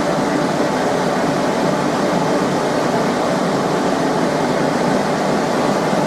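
Blacksmith's forge with air being blown into the fire, giving a steady, even rush of noise while a steel bar heats for bending.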